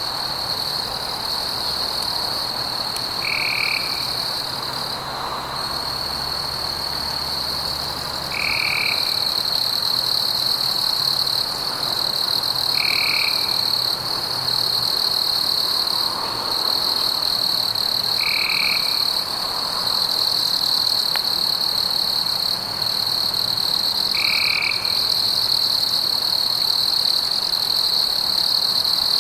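Night forest ambience: a continuous high-pitched chorus of insects, with a short animal call repeating about every five seconds.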